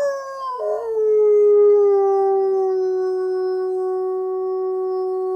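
Dog howling: one long howl that slides down in pitch, wavers briefly under a second in, then holds a steady, lower note.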